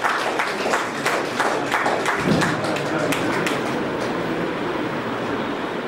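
Audience applauding, many hands clapping steadily, with some voices mixed in.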